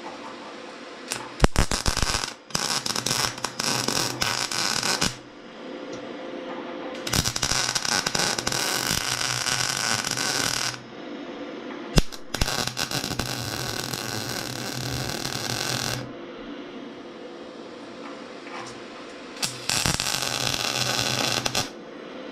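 MIG welding arc crackling on the rusty steel of a tractor fuel tank, in five bursts of one to four seconds each. A steady low hum runs between the bursts.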